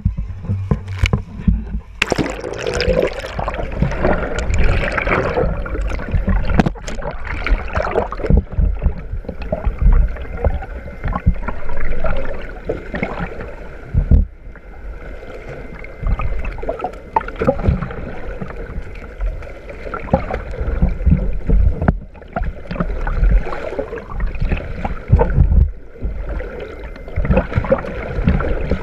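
Sea water rushing and gurgling against a camera held just below the surface, with irregular splashes and a strong low rumble.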